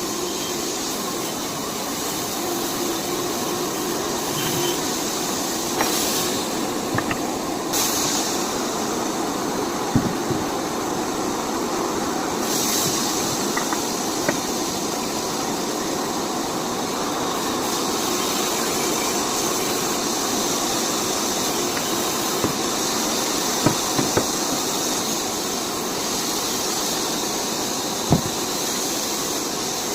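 Steady hissing noise with a few short knocks: one about ten seconds in and several near the end.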